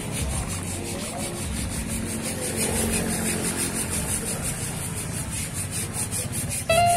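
Hand file rasping across a saw blade's teeth, sharpening it, in a quick, even rhythm of strokes.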